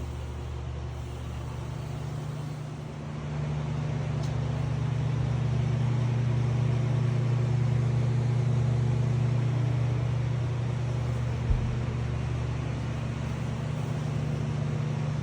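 Twin Mercury 300 outboard engines running steadily under way, a low engine drone that gets louder about three seconds in and then holds. A single short low thump near the end.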